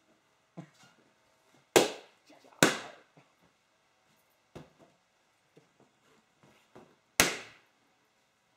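Three rubber balloons popping with sharp bangs, two close together about two seconds in and a third near the end, with a few faint knocks between.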